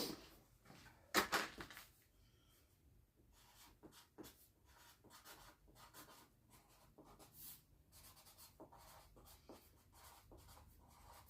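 Felt-tip marker writing on a cardboard box in short, faint scratchy strokes. Preceded by a couple of louder handling knocks and rustles in the first second or so.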